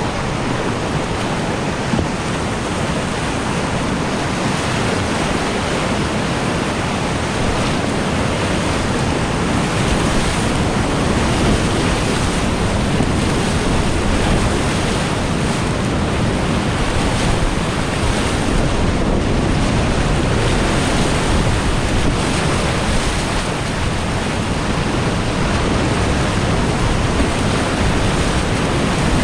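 Whitewater rapids rushing steadily: a continuous loud wash of river water.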